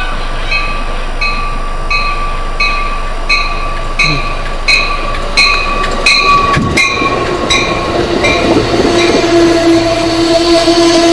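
Amtrak train entering the station, led by a cab control car ringing its bell, about one and a half strikes a second and growing louder until it stops about seven seconds in. Then comes a rush of air and the rumble and whine of the coaches rolling close past the platform.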